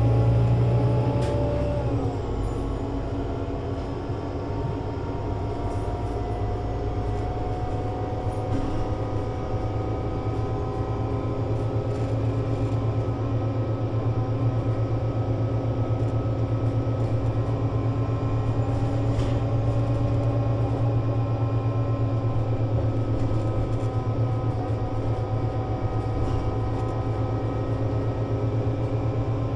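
Solaris Urbino 18 IV articulated bus with a 240 kW DAF diesel engine and Voith Diwa 6 automatic gearbox running in service: a steady engine drone with several whining tones above it. About a second and a half in the tones drop in pitch, then the bus runs on steadily with the tones drifting slowly.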